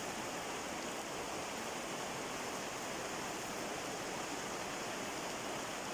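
Rain on the plastic-film roof of a tunnel greenhouse, heard from inside as a steady, even hiss.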